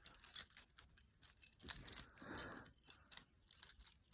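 A bunch of keys jangling and clinking as they are sorted through by hand in search of one key: an uneven run of sharp metallic clicks.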